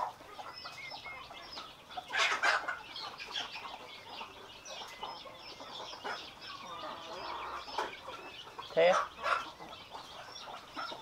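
Chickens clucking in the background as a string of short, scattered calls, with a brief louder noise about two seconds in and a voice near the end.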